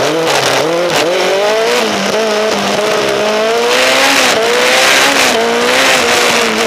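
Lola T620 single-seater race car engine heard from the cockpit. The engine is pulled hard and then backed off again and again through a slalom, so its pitch rises and falls repeatedly with short dips. A rushing hiss of tyres and wind grows louder in the second half.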